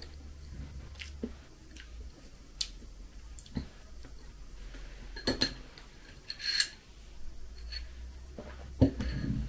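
Small eating sounds: a fork picking at pishmanie floss halva in a plastic bag, with light clicks and short bursts of crinkling, then a sharper knock of a tea mug near the end.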